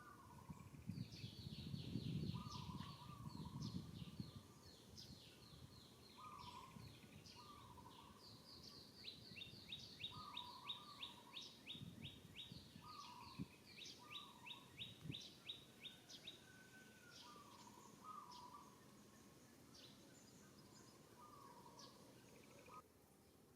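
Birds chirping in quick repeated trills, with softer, lower short calls every second or two. A low rumble is heard during the first few seconds.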